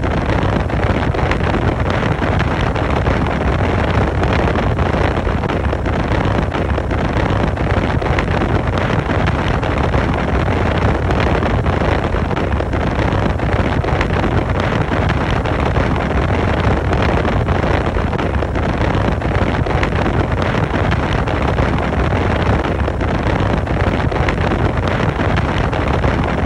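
Wind buffeting the microphone on a direct-drive wakeboard boat underway across choppy water, with the inboard engine's low, steady drone and hull and water noise underneath.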